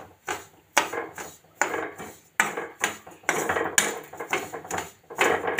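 A spatula stirring sesame seeds as they dry-roast in a hot kadhai and begin to brown. It makes repeated scraping strokes against the pan, roughly one a second, with the seeds rustling.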